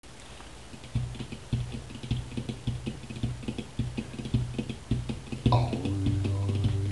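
Quiet musical intro: a run of short plucked or struck notes, about two a second, each with a low resonant thump. About five and a half seconds in, a held, slightly wavering pitched tone joins them.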